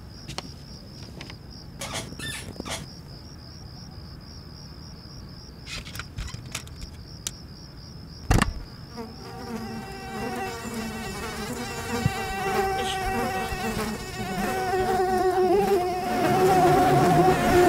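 A mosquito's high, steady whine, wavering slightly, with a few clicks and one sharp knock about eight seconds in. From about nine seconds a lower, deeper buzz joins it and grows louder toward the end.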